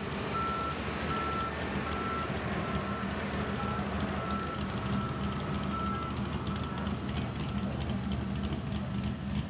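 Backup alarm beeping steadily about every half second, stopping about six seconds in, over a pickup truck's engine idling with a steady low rumble that grows a little louder near the end.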